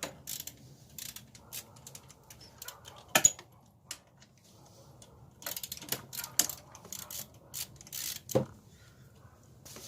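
Socket ratchet clicking in irregular runs, with metal tool clinks, as the 13 mm alternator mounting bolt is backed out. A few sharper knocks stand out, about three seconds in and again near the end.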